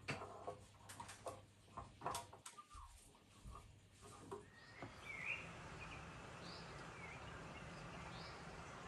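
A few light clicks and knocks of kitchen handling, then from about five seconds in a tap running steadily into a stainless steel sink, with a few short bird chirps over it.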